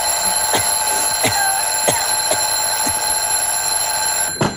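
Alarm clock bell ringing continuously, then cut off suddenly with a knock near the end.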